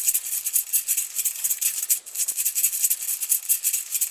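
Baby rattle shaken rapidly, a dense, fast clatter of small beads. It comes in two spells with a brief break about two seconds in.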